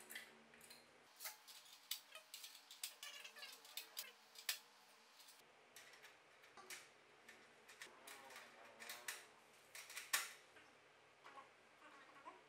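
Scattered light clicks and taps from hands handling a Godox BD-04 barn door, honeycomb grid and colour filters on a light's standard reflector. The sharpest click comes about ten seconds in.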